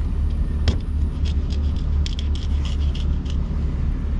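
A fillet knife cutting and scraping along a hardhead catfish on a plastic cutting board: one sharp click, then a run of short scrapes over about two seconds. Under it runs a steady low rumble.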